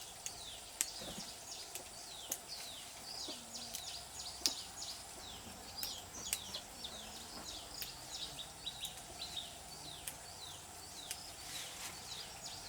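Birds chirping outdoors: many short, downward-sliding chirps, several a second, over a steady background hiss with a faint high steady tone and an occasional sharp click.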